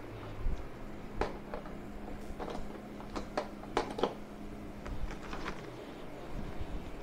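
Scattered light clicks and knocks of hand handling, about a dozen irregular taps over a faint steady hum; the polishers are not yet running.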